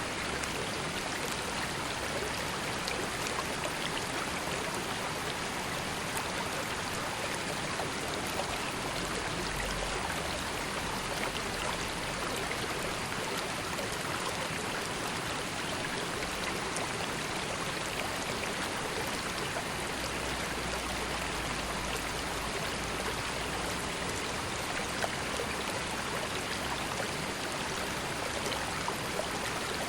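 Steady rush of a river or stream, flowing water babbling with fine splashes and trickles.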